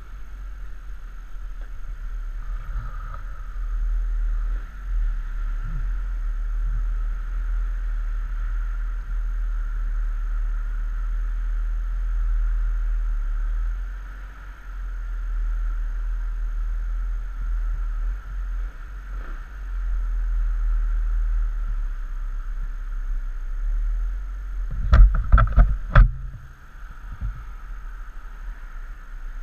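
Pulse Phantom scooter idling at a standstill, heard through a helmet-mounted microphone as a steady low rumble. About 25 seconds in, four or five sharp knocks close to the microphone come in quick succession and are the loudest sound.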